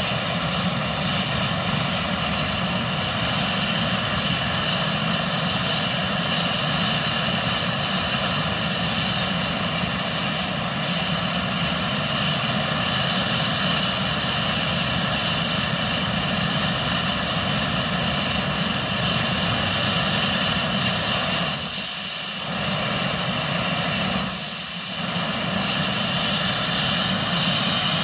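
Airbus H145 helicopter's twin turboshaft engines running on the ground, a steady turbine whine with several high tones held over a loud, even roar. The sound dips briefly twice near the end, and a tone starts to rise at the very end.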